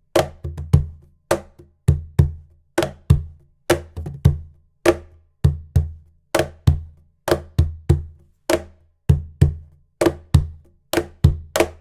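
Sela CaSela Pro cajon played by hand in a steady groove, deep bass strokes mixed with sharp, bright slap strokes.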